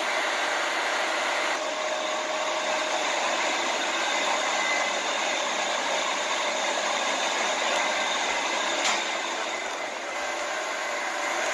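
Large Berthiez vertical lathe running: a steady whirring hiss with faint whining tones and a brief click about nine seconds in.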